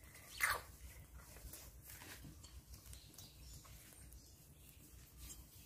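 A baby monkey gives one short squeak about half a second in, followed by faint rustling and soft clicks.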